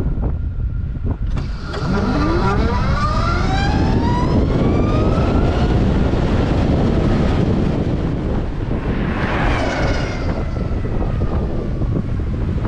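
Zero SR/S electric motorcycle's motor whining and climbing steadily in pitch as the bike accelerates hard, then a second whine about nine seconds in that slowly falls as it eases off, all under heavy wind buffeting on the microphone.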